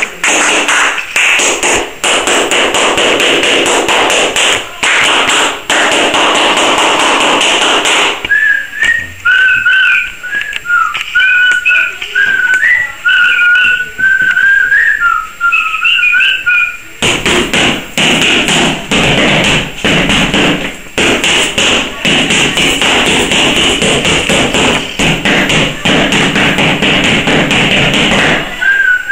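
Body percussion: hands clapping and tapping rapidly, broken in the middle by a person whistling a wavering tune for about nine seconds, after which the clapping and tapping starts again.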